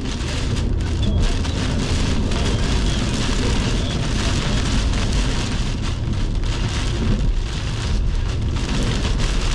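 Severe-thunderstorm wind gusts and heavy rain battering a car, heard from inside the cabin: a steady, dense rushing with a heavy low rumble.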